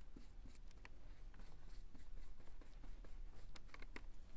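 Faint scratching strokes of a small paintbrush on laser-cut wooden pieces, with scattered light ticks and taps.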